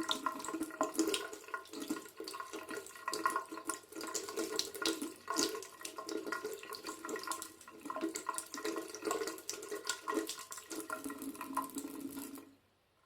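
Tap water running into a sink as fresh ginger root is rinsed under it, splashing unevenly. It cuts off suddenly near the end.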